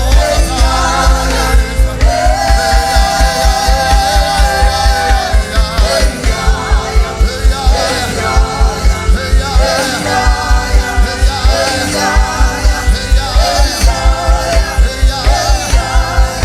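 Live gospel worship music: singing over a band with a steady, fast, heavy bass beat that drops out briefly about ten seconds in.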